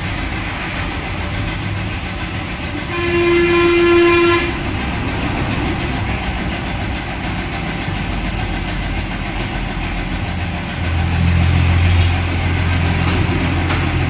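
Steady background traffic noise with a vehicle horn sounding once for about a second and a half, about three seconds in. Near the end a low hum swells for a second or so and falls away.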